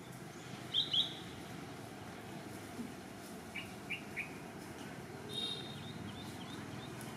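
Birds chirping: a pair of short high chirps about a second in, three quick chirps around the middle, and a brief rapid call after five seconds, over a steady faint hiss.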